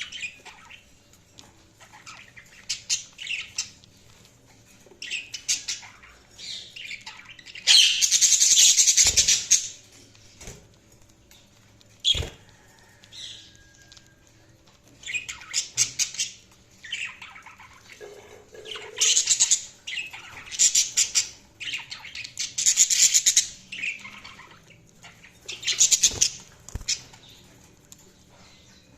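Budgerigars chirping and chattering in short bursts of rapid high notes with quieter gaps between, the loudest burst about eight seconds in.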